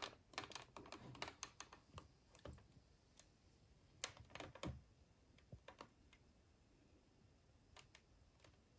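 Quiet, sharp plastic clicks and taps from handling a JVC Super VHS camcorder: its buttons pressed and its flip-out LCD screen swung open. A quick flurry of clicks in the first second and a half, another cluster about four seconds in, then only a few scattered clicks.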